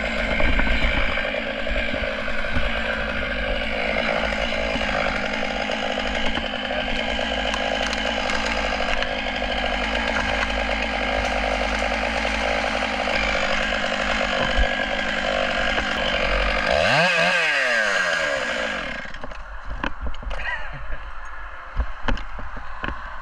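Stihl MS 661 two-stroke chainsaw running at full throttle, cutting through a big leaf maple trunk. About 17 seconds in, its pitch swoops down and back up, and the saw falls silent about two seconds later. A few sharp cracks and knocks follow, as the cut tree gives way.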